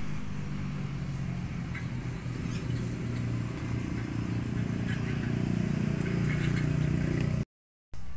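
A motor running steadily with a low hum, growing a little louder toward the end, with light clicks and clatter above it.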